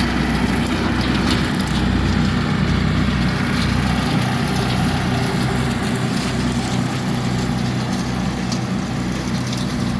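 Tractor engine running steadily while its brush hog (rotary cutter) mows through brush and stemmy growth, with a broad noisy whir and scattered faint ticks and snaps.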